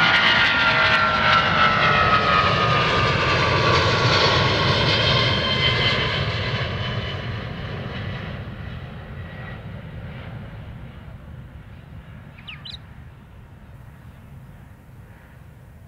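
Boeing 777-200ER's twin jet engines at takeoff climb power as the airliner climbs away, with several whines falling in pitch over the first seconds. The sound then fades steadily into a distant rumble over the second half.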